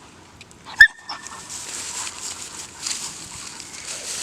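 A Vizsla gives one short, sharp yelp about a second in, then brush rustles steadily as the dog and hunters push through the cover.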